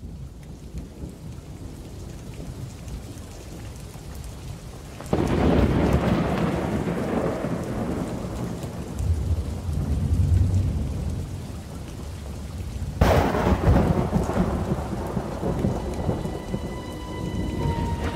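Thunderstorm: steady rain with two sudden claps of thunder, about a third of the way in and again about two-thirds through, each rumbling on and slowly fading. Near the end, held musical notes begin to sound over the rain.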